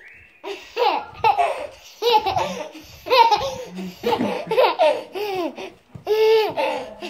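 A toddler laughing hard in a long run of short, high-pitched peals, one burst after another.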